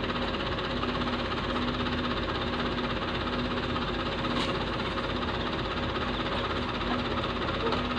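A loaded dump truck's engine running steadily at an even speed, with a constant hum.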